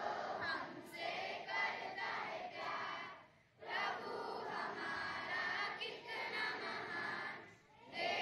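A large group of schoolchildren chanting together in unison, phrase by phrase, with two short breaks between lines.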